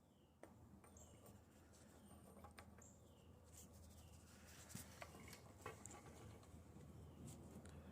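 Near silence: faint background hum with a short chirp repeating about once a second and a few scattered light clicks.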